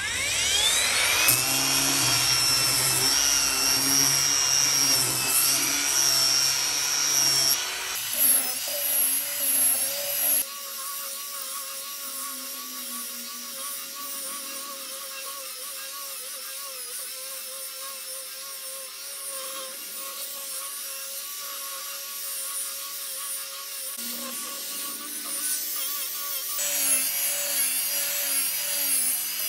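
Cordless angle grinder with a sanding pad, spinning up and then sanding a wooden table top: a steady motor whine with the rasp of the pad on the wood. Its tone shifts a few times as the passes and pressure change.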